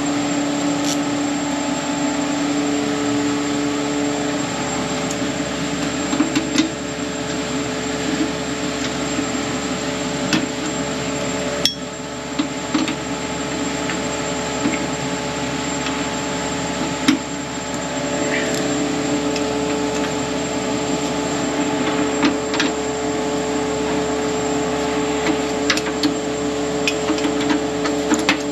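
Scattered metallic clicks and knocks of hand tools, such as a wrench, against the metal parts of a refrigerator's compressor compartment, over a steady mechanical hum.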